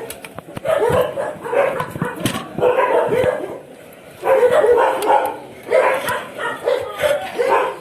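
A dog barking and yipping over and over in quick bouts, with a short pause about halfway through.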